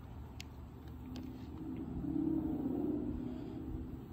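Low rumble of a passing motor vehicle, swelling about two seconds in and easing off near the end. A few faint clicks come from the air pistol being handled and set down on the wooden rail.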